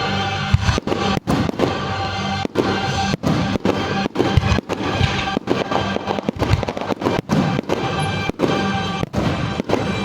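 Firework display going off: dense, rapid bangs and crackling heard over loud music that accompanies the show.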